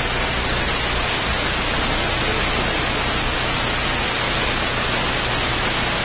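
Loud, steady static hiss with a low hum beneath it. It is electrical interference on the recording's audio, not a sound in the room.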